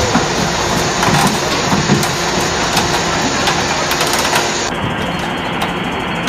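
Excavator's diesel engine running with a steady low hum under rough, noisy machine sound, turning duller about two-thirds of the way through.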